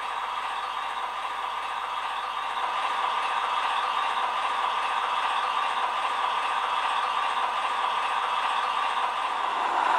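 Sound decoder of a Roco model ČD class 751 'Bardotka' diesel locomotive playing its diesel engine sound through the model's small loudspeaker while the locomotive runs slowly with coaches, mixed with rattling wheel noise on the track. It grows a little louder about three seconds in.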